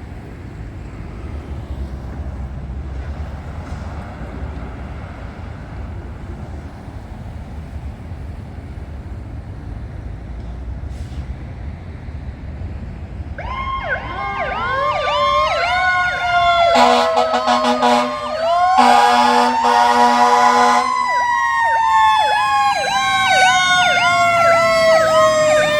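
Low road rumble, then about halfway through a fire engine's siren starts in a rapid yelp. Two long air-horn blasts follow a few seconds later, while a second siren winds up and then slowly winds down.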